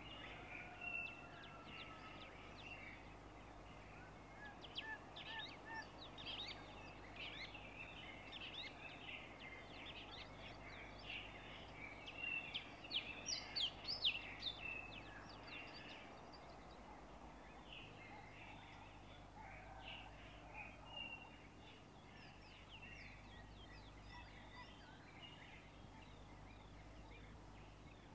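Many small birds chirping and chattering faintly, with a flurry of louder calls about halfway through, over a low steady hum.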